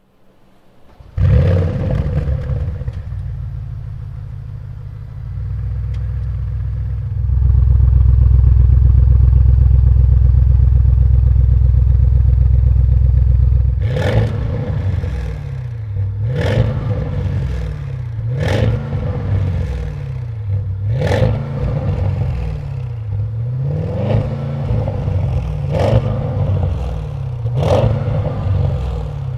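Audi RS6 C8's twin-turbo V8 breathing through a Capristo stainless cat-back exhaust with valved rear silencers. It starts about a second in with a loud flare and runs at a steady idle that steps up twice. From about halfway it is revved in a string of about seven short throttle blips, each rising and falling in pitch.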